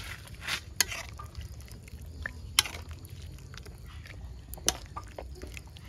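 Scattered clinks and knocks of dishes and utensils being handled while a meal is set out, four or five sharp ones spread over a few seconds, over a low steady rumble.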